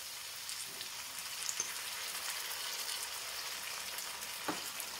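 Onion and freshly added chopped tomatoes frying in hot oil in a non-stick wok: a steady sizzle with fine crackles. A single light knock sounds near the end.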